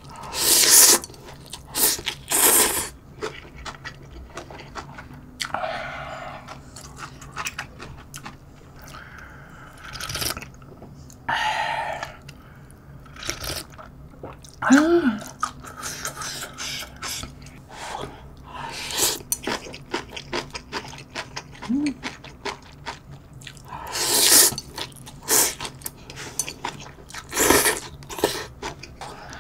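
A person eating ramyeon noodles with bean sprouts: loud noodle slurps at intervals, with wet chewing and the crunch of bean sprouts between them. Broth is slurped from the lifted bowl about halfway through, and there are a couple of short hummed 'mm's.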